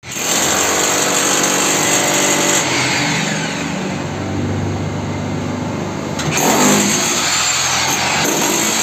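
A power tool's motor running continuously, its sound shifting about two and a half seconds in and again about six seconds in.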